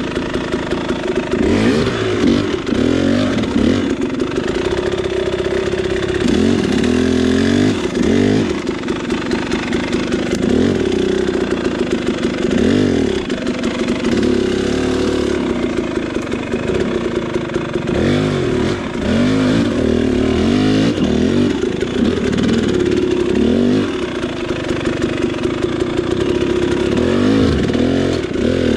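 KTM 300 two-stroke dirt bike engine working at low speed. It revs up in short throttle blips and drops back toward idle again and again as it crawls over rough trail.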